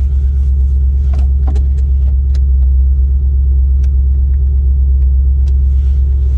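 BMW M62 4.6-litre V8 idling steadily in its cold-start fast idle, running with the intake piping removed and no air filter, so it draws from open air. A few faint clicks sound over the steady low engine note.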